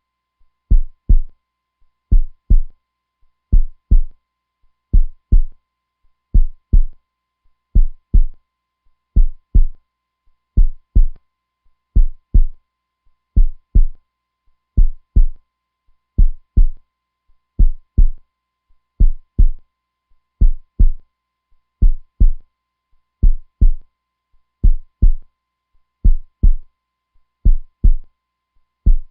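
Heartbeat sound, a steady lub-dub: pairs of low, dull thumps repeating evenly about every second and a half.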